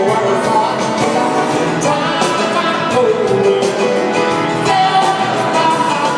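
Live pop-rock band with a male lead singer singing at the piano, drums keeping a steady beat, heard from far back in an arena audience.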